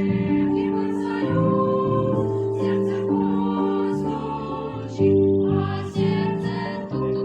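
Music: a Christian wedding song with voices singing over instrumental accompaniment.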